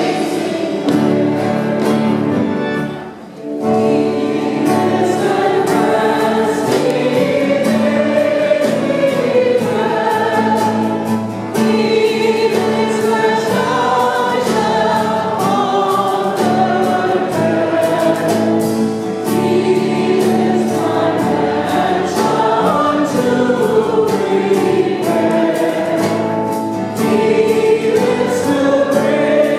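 Church choir singing a hymn with acoustic guitar and keyboard accompaniment, with a brief drop in sound about three seconds in.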